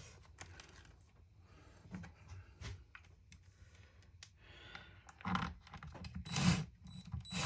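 Light clicking and tapping of plastic and metal chainsaw parts being handled and fitted by hand, with a few louder knocks and rattles about five to six and a half seconds in.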